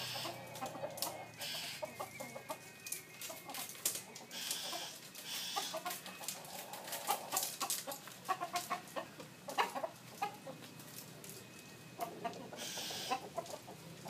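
Fighting-cock roosters clucking in many short, scattered calls, with rustling and sharp knocks as a woven bamboo cage is lifted and a rooster is handled.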